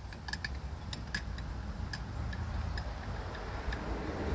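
Light, sharp clicks of hand tools at work on a chainsaw being taken apart, uneven, about two a second, over a steady low hum.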